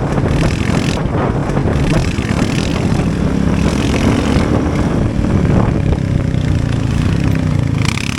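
Motorcycle engine running steadily at riding speed, with wind rushing over the microphone.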